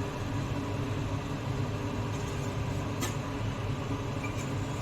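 Steady low rumble of a lit gas stove burner heating oil in a pressure cooker, with one faint click about three seconds in.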